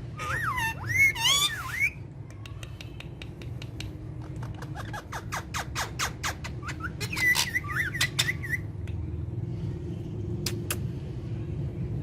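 Pet parrots calling: a few loud, bending squawks in the first two seconds, then a run of sharp clicks mixed with short chirps that dies down after about nine seconds.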